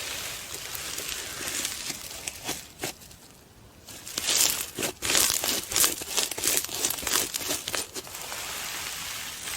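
Slime being handled by hand, pressed and stretched, giving sticky crackling clicks. The clicking is densest from about four to eight seconds in, after a brief quieter lull.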